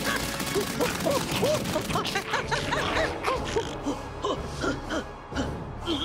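Cartoon soundtrack: a character's rapid yelps and gasps over background music, with a rush of noise at the start.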